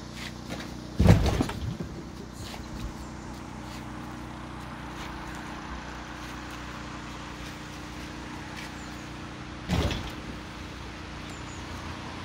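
Narrowboat diesel engine idling steadily, with two loud thumps, one about a second in and one near the end.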